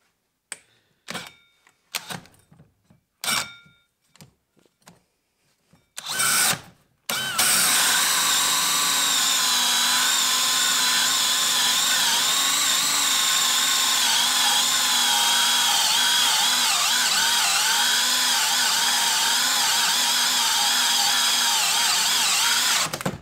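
DeWalt XR brushless hammer drill boring a large hole saw through a wooden board on speed 3. A few short clicks and knocks come first, then about seven seconds in the drill runs continuously for some sixteen seconds, its pitch wavering and sagging as the saw loads up in the cut, and it stops near the end.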